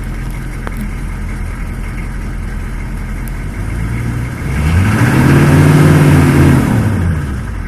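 Diesel Chevrolet Suburban engine idling, then revved once about four seconds in. The revs are held up for a couple of seconds, then fall back to idle near the end.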